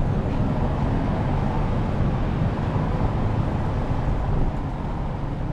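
Steady low rumble of city street traffic and idling engines, dropping a little about four and a half seconds in.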